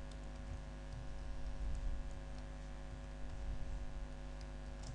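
Faint, irregular keystrokes on a computer keyboard over a steady low electrical hum.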